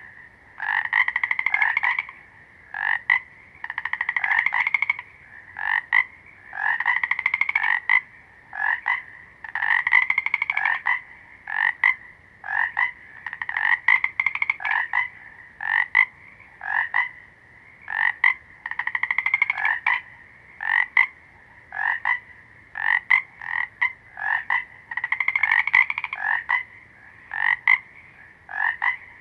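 A frog calling over and over: pulsed, trill-like calls of about a second each, alternating with short clicking notes.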